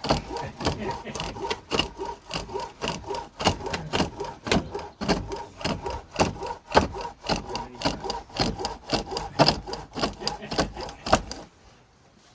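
A chisel cutting into a wooden blank spinning on a foot-powered pole lathe, giving rhythmic scraping strokes, two or three a second, that stop suddenly near the end.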